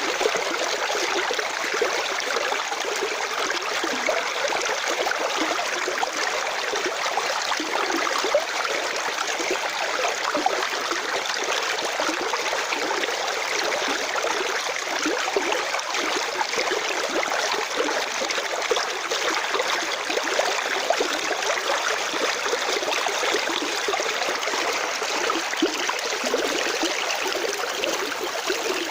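Stream water running and babbling steadily over rocks, a continuous splashing with small bubbling flecks.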